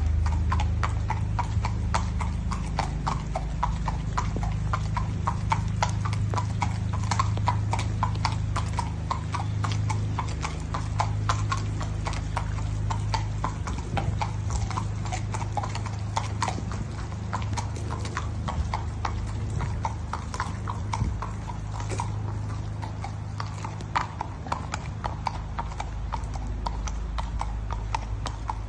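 Hooves of a five-year-old Irish Draught x Thoroughbred mare walking on wet concrete: a steady, even clip-clop of a few hoofbeats a second, over a steady low rumble.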